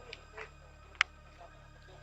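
A single sharp click about halfway through, over a steady low hum.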